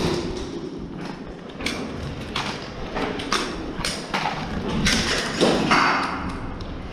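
Irregular sharp taps and thuds in an airsoft game, spaced roughly half a second to a second apart, with a brief rustling burst about five and a half seconds in.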